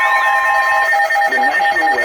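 Emergency Alert System attention signal: a loud, steady two-tone alarm. The higher tone drops out about a second in, leaving the lower tone, and a fainter wavering sound starts underneath near the end.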